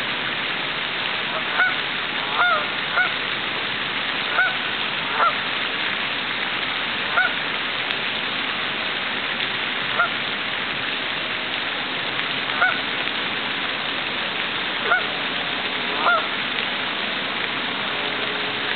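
Canada geese honking now and then, about a dozen short honks scattered through, over the steady hiss of a lake fountain's spray.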